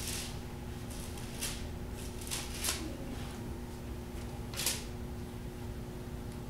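Bible pages rustling as they are handled and turned: a handful of brief, soft rustles, the loudest a little before five seconds in, over a steady low hum.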